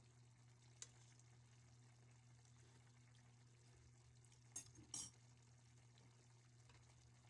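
Near silence over a low steady hum, with a faint click about a second in and a few light metal clinks a little past the middle: a metal spoon against a frying pan of simmering chicken adobo.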